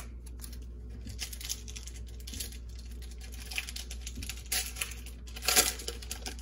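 Trading cards and their paper pack wrapper being handled by hand: a string of short rustles, slides and crinkles, the loudest shortly before the end, over a low steady hum.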